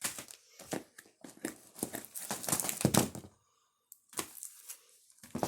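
Fireworks packaging being handled and rustled, in a run of rough bursts for about three seconds, a short pause, then more.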